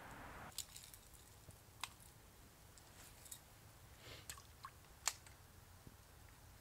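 Near silence, with a soft hiss that stops about half a second in, then a few faint, scattered sharp clicks and ticks; the sharpest comes about five seconds in.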